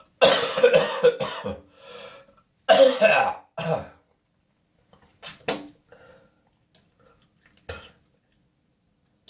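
A man's early-morning coughing fit with throat clearing: two loud, ragged bouts of coughing in the first four seconds, each trailing off, then a few short, much quieter sounds before it falls still.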